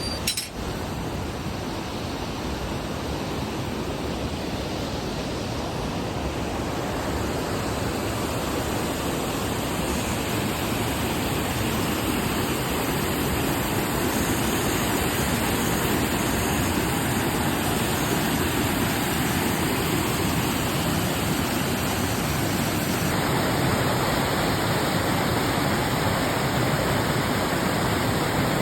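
Steady rushing roar of Pistyll Rhaeadr, a tall single-drop waterfall, growing slightly louder as it goes, with a brief dropout about half a second in.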